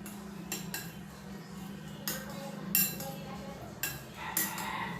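A utensil stirring a thick tuna-mayonnaise spread in a bowl, clinking against the bowl's side several times at uneven intervals.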